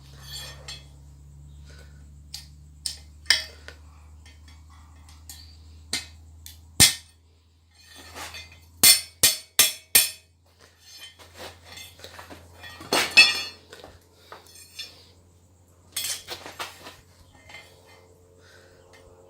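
Steel struck and handled at the anvil while forging tongs: scattered, irregular metallic hits and clinks, with a quick run of three strikes about nine seconds in and a loud strike around thirteen seconds. A faint low hum runs underneath and cuts out abruptly about seven seconds in.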